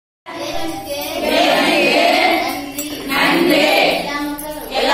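A group of women singing together in unison, in phrases with short pauses between them.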